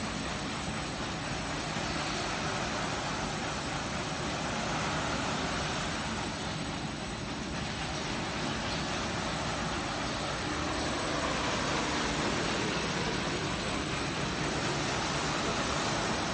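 Industrial brush sanding machine for wood cabinet doors running, its rotating brush sanding heads and drive motors making a steady, continuous mechanical noise.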